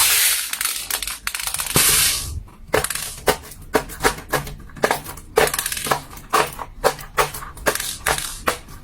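Silicone pop-it fidget toy's bubbles being pressed in quick succession: a run of sharp pops, roughly two or three a second, after a couple of brief rustling noises at the start.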